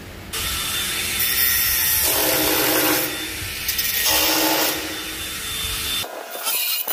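A power tool running under load, a steady high whine over a hissing rush that starts abruptly just after the start, growing heavier twice as it bites harder, and cutting off about six seconds in.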